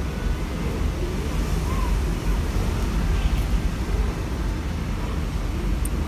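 Gusty wind of an approaching typhoon howling in through an open window screen: a loud, low rumble that swells and eases with the gusts.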